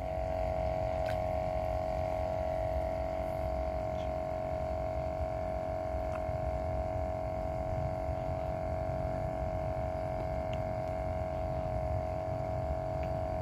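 A steady hum holding one constant mid-pitched tone, over a low rumbling noise.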